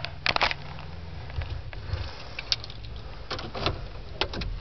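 Scattered clicks and light knocks, as of hands working the controls inside a car, over a steady low hum in the cabin.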